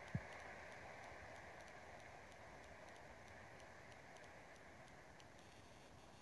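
Near silence: faint room tone with a few faint scattered clicks, and one short low thump just after the start.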